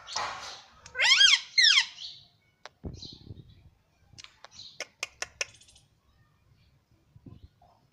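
Indian ringneck parrot calling: two loud squawks that bend up and down in pitch about a second in, followed by a soft thump and a quick run of sharp clicks.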